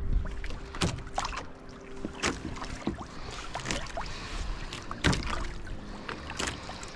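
Water splashing and dripping around a fishing kayak, with scattered knocks and clicks on the hull and gear, and a faint low wind rumble at the start.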